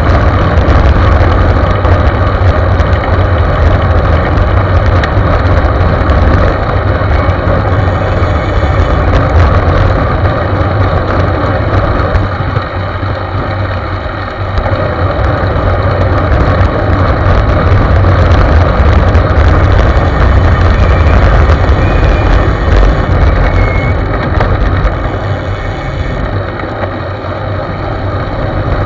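Wind rushing over the microphone of a camera mounted on a moving road bike, a loud steady rumble with tyre and road noise underneath, easing a little about halfway and again near the end.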